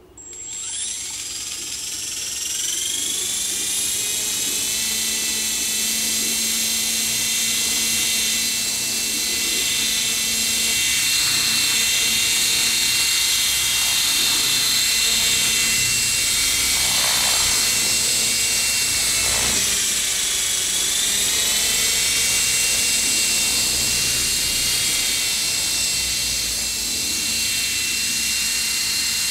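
Falcon 3D electric RC helicopter spooling up: a high whine from its motor and rotor drive rises in pitch over the first few seconds, then settles into a steady whine with a low rotor hum as it hovers. About two-thirds of the way in, the pitch dips and comes back up as the throttle is varied.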